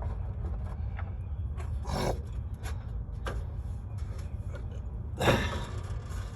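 Small hand tools being handled: scattered clicks and two brief scraping rubs, the louder one about five seconds in, over a steady low rumble.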